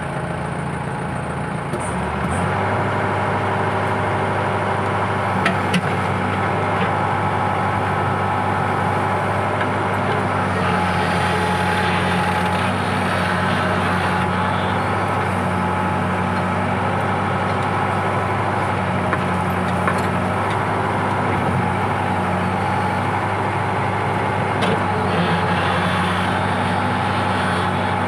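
Case 580 backhoe's diesel engine running under work, speeding up about two seconds in and then holding steady, with a few short knocks.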